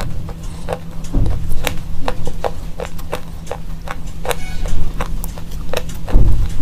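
Slate pencil being bitten and chewed: a string of sharp, crisp cracks, about two or three a second, with a couple of dull low thuds about a second in and again near the end.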